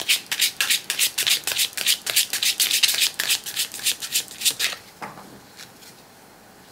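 A deck of Lenormand cards shuffled by hand: cards sliding and slapping against each other in quick strokes about five a second, stopping a little past halfway, with a couple of faint strokes after.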